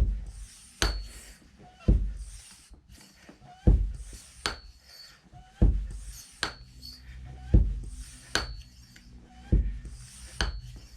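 High-pressure hand pump being worked in slow, even strokes to fill a PCP pellet rifle. A metallic clank with a short ring and a dull thump alternate about once a second, making one full stroke every two seconds or so, with a soft airy hiss between. Each downstroke is near full pressure, so it is forced down with body weight to push high-pressure air into the gun.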